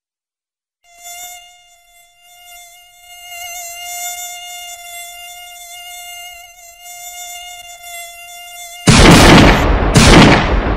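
Mosquito whine sound effect, a thin steady buzz that fades in about a second in, dips, then holds and wavers in loudness. Near the end come two loud pistol gunshot effects about a second apart, the second ringing out and dying away.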